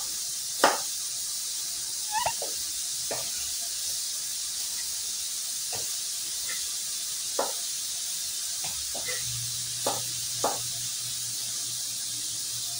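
Kitchen knife knocking on a cutting board while slicing onion: about eight separate, irregularly spaced chops over a steady high hiss.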